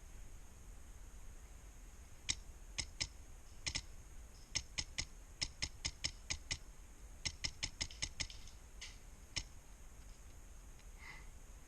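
Wolverine MTW HPA airsoft rifle firing semi-automatic: about two dozen sharp snapping shots in quick strings of four to five a second, with short pauses between strings.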